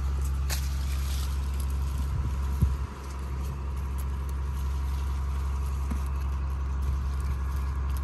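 A steady low machine rumble with a faint constant whine above it, dipping briefly a little under three seconds in, and light rustling of cherry branches and leaves handled close to the microphone.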